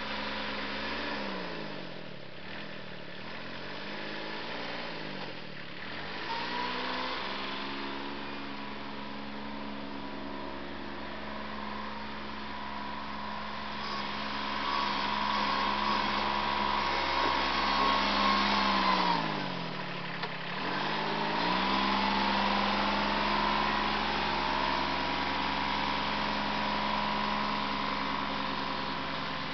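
Compact tractor's engine running, its pitch dropping and climbing back several times as the engine speed changes, the deepest dip about twenty seconds in.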